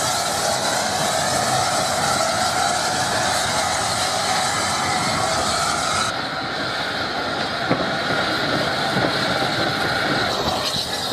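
Steam locomotive on the move: a continuous running noise from the engine and its wheels on the rails, with a sustained whine that slowly rises in pitch and stops about ten seconds in.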